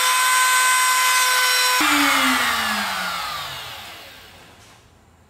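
Trim router motor running at full speed while routing out a hinge recess in a door jamb. About two seconds in it is switched off, and its whine falls steadily in pitch and fades as the motor spins down.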